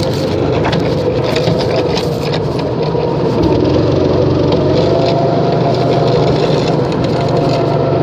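Steady mechanical hum, loud and even, with a held higher tone above it and light clicking.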